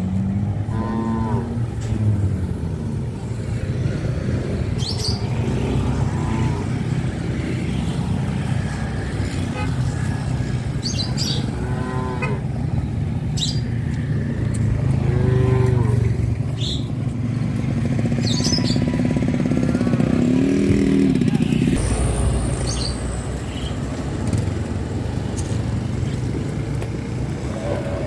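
An engine running steadily, its note shifting about two-thirds of the way through, with short bird chirps above it.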